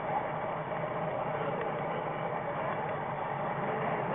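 HO-scale model train running along the track, a steady mechanical rumble of wheels and drive picked up by a camera riding on one of the cars.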